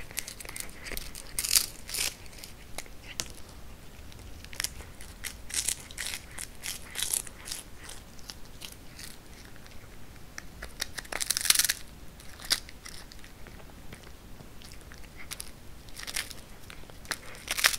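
A Norwegian Forest cat biting and chewing a dried capelin held out by hand. Irregular crisp crunches come in several louder bursts.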